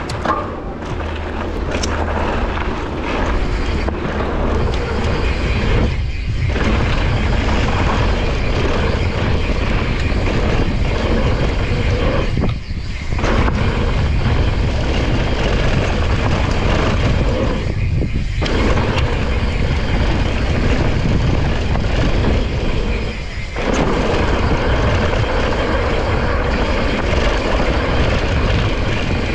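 Wind rushing over a GoPro's microphone together with a Santa Cruz Nomad mountain bike's tyres rolling and rattling down a dry dirt trail, a steady loud rush with a deep rumble. The rush dips briefly four times.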